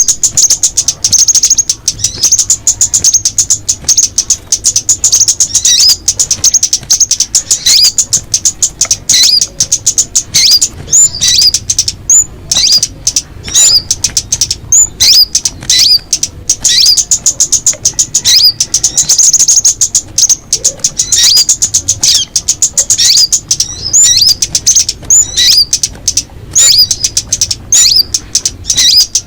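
Songbirds, locally called chim tía ô and chim ốc mít, singing: a loud, fast, high-pitched chatter throughout, broken by short notes that fall in pitch, repeated about once a second.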